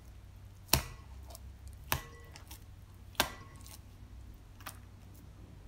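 Hands folding and knocking back soft bread dough in a bowl: three sharp knocks about a second apart, each with a short ring from the bowl, then a lighter click.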